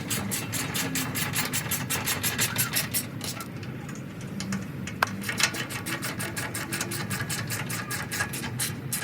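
Hand ratchet clicking in quick, even strokes while tightening the transfer case skid plate bolts, with a pause partway through and a single sharp clink about five seconds in.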